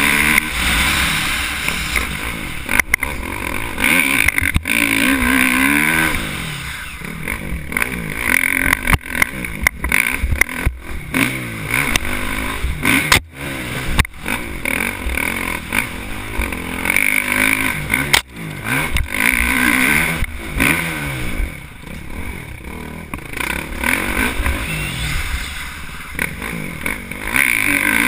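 Dirt bike engine revving up and down as it is ridden hard on a motocross trail, its pitch rising and falling through the gears. Sharp knocks come through from the bike over the bumps. The engine note drops out briefly twice, about halfway through and again later.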